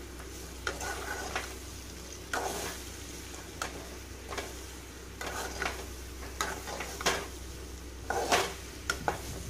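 Steel spatula scraping and turning raw plantain slices in a metal kadai, in irregular strokes with a few sharper clanks, the loudest a little past eight seconds in. Underneath is a faint sizzle of the slices shallow-frying in oil on a low flame.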